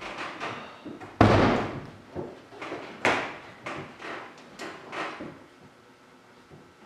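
A pickup truck's driver door slammed shut about a second in, followed by several lighter knocks and thuds.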